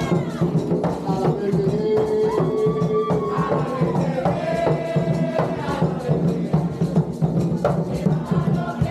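Live hand drumming on several barrel-shaped drums in a steady, busy rhythm, with a single voice singing long held notes over the drums.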